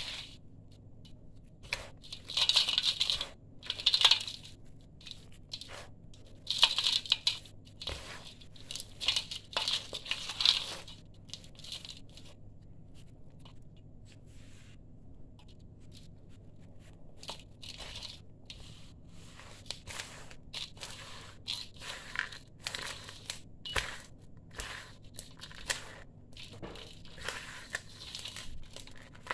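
Dry sand-cement mix crumbled by hand and let fall into a stainless steel bowl. Gritty hissing pours come in several bursts over the first ten seconds or so, then a quieter spell, then many small crunches and crackles as a hand digs and scoops through the mix.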